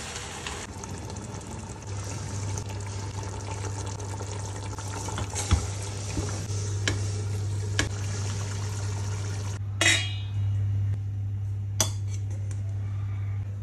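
A wooden spoon stirring chicken masala and chopped herbs in a steel pot, with a steady hiss and a few sharp knocks of the spoon against the pot, over a steady low hum. Near the end, two sharper clatters of steel cookware.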